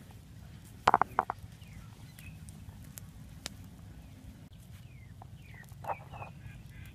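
Fire of dry grass and palm leaves burning, with a few sharp crackles and pops. Short bird calls come in twice, in a loud cluster about a second in and again near six seconds.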